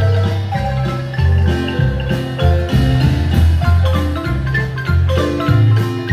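Guatemalan marimba music: the tenor marimba playing a quick run of struck notes over a steady, moving bass line.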